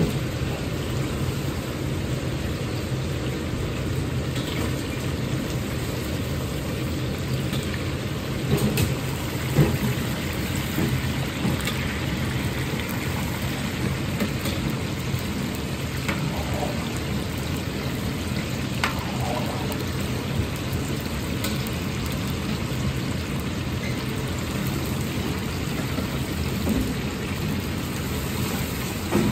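Cubes of starch-coated firm tofu deep-frying in a wok of hot oil, the oil bubbling and crackling steadily over the steady roar of the gas wok burner. A few metal knocks of the ladle against the wok around nine seconds in.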